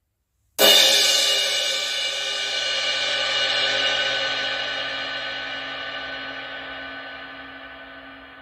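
An 18-inch Omete Mercury crash cymbal struck once about half a second in, then ringing out in a long, shimmering wash that slowly fades.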